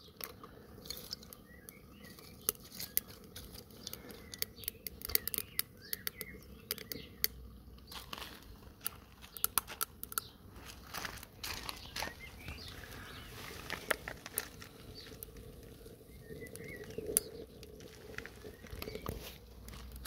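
Small sticks and twigs crackling as they burn in the chimney firebox of a Ghillie Kettle, with irregular sharp pops scattered throughout.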